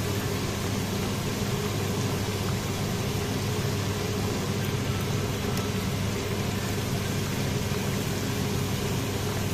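Hot oil sizzling steadily around floured cubes of liver deep-frying in a pan, over a steady low hum.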